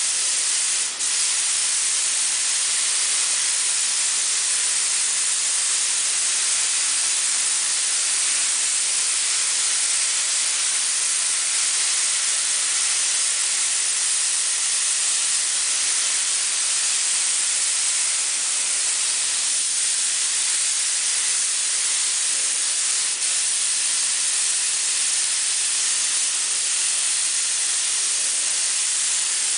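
Compressed-air paint spray gun hissing steadily as it sprays paint onto a car body, with a brief break about a second in.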